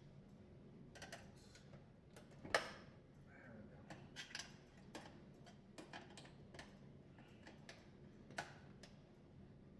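Scattered light clicks and taps of hands working on the dishwasher's screws and plastic panel, with one sharper click about two and a half seconds in.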